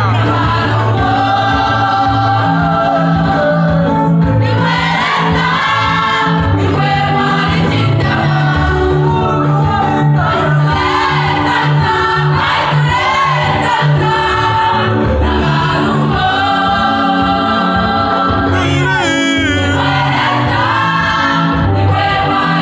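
Gospel music: a choir singing over a band with a steady bass line.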